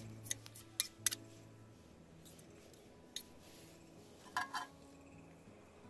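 Steel spoon and fork clinking and scraping on a stainless-steel plate: a few sharp clicks in the first second, another near three seconds, and two short ringing taps a little after four seconds.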